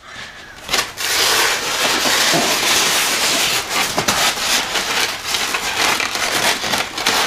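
A snug-fitting cardboard box being slid up out of its outer cardboard box: a steady scraping rub of cardboard on cardboard that starts about a second in.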